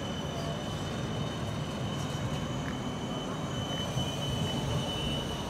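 Articulated low-floor electric tram rolling past on street track: a steady low rumble, with a constant high whine over it.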